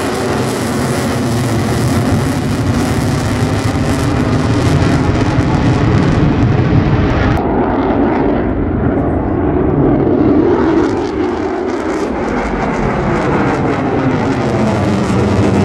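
Jet noise from a USAF F-35A Lightning II's single afterburning turbofan, loud and steady during an air-show display pass. About halfway through, the high hiss cuts away abruptly, leaving a deeper rumble; the hiss builds back over the last few seconds.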